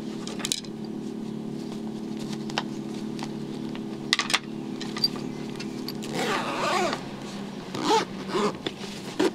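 Kitchen knives being handled and slid into a padded soft gun case: scattered light clicks and knocks, then a rustling scrape of fabric a little past the middle, over a steady low hum.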